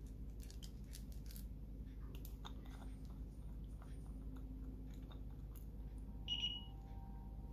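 Faint clicks and scrapes of small plastic glitter jars and their screw-on lids being handled. One short high-pitched beep sounds about six seconds in.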